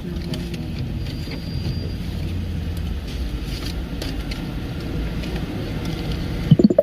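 Steady low rumble of a motor vehicle running, with a brief voice near the end.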